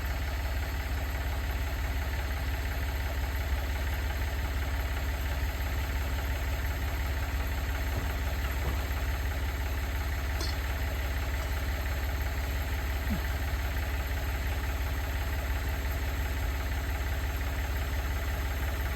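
An engine idling steadily, a low, even rumble that does not change.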